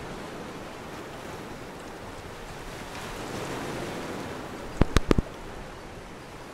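Wind on the microphone over small sea waves lapping, a steady hiss that swells a little around the middle. About five seconds in comes a quick cluster of four sharp knocks, the loudest sounds here.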